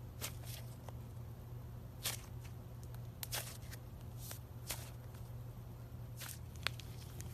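Slime being squeezed and poked by hand, giving scattered sharp clicks and pops, about a dozen in all, the strongest near the end, over a steady low hum.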